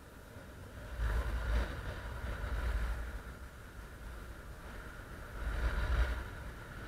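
Wind rushing over the microphone of a paraglider's body-mounted camera in flight: a low buffeting rumble that surges about a second in and again near six seconds.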